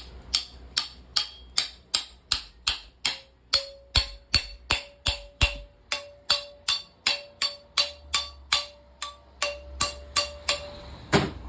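Hammer striking metal in a steady run of about two to three blows a second, driving a fitted piece into a scooter's broken center stand. From about three seconds in the struck steel rings with a steady tone between blows, and a last, louder blow lands near the end.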